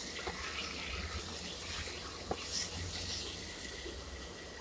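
Vegetables sizzling in oil in a cooking pot as they are stirred: a steady hiss with a couple of faint clicks of the spoon against the pot.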